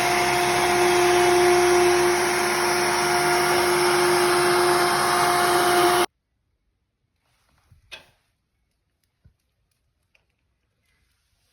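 Makita trim router running at speed, a steady high whine over a rushing noise, which cuts off abruptly about six seconds in; a faint click follows near the end.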